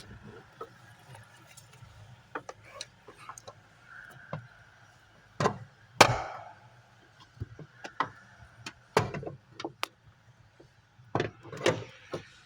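Scattered knocks and clunks of metal parts and tools as a clutch master cylinder is forced into place in a car; the loudest knock comes about six seconds in, with a short ring after it.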